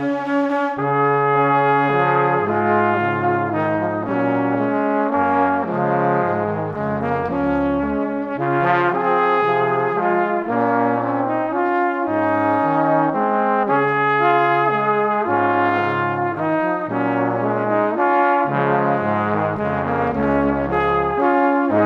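Background music: sustained, brass-like melodic notes over a moving bass line.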